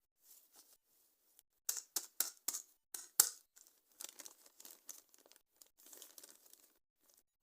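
Toy packaging being torn open: a quick run of five or six sharp rips, the last the loudest, then softer crinkly rustling of the wrapping.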